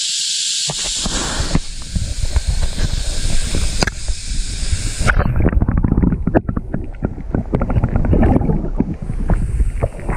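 Water sloshing and gurgling heavily against an action camera dipped into and under river water, heard as a muffled, crackling rumble. A steady high hiss runs over it and cuts out about five seconds in, as the camera goes fully under.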